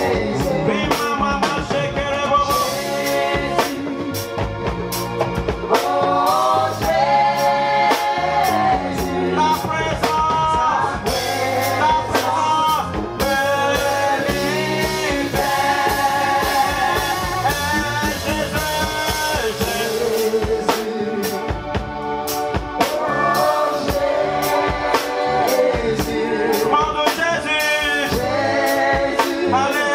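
Live gospel worship song: a man sings into a microphone over a drum kit keeping a steady beat.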